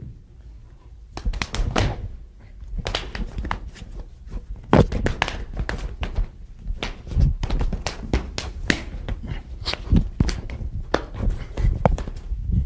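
Bare forearms and hands slapping and knocking against each other in a fast Wing Chun attack-and-block drill: an irregular run of sharp thuds and slaps that starts about a second in and gets busier after a few seconds.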